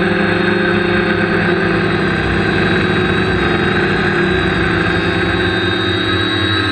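Quadcopter's electric motors and propellers running in flight, heard from on board as a loud, steady multi-tone whine that shifts slightly in pitch as the motor speeds change.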